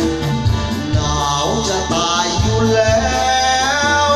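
Backing music with a steady beat; a man's singing voice, through a handheld microphone, comes in about a second in and carries a Thai song over it.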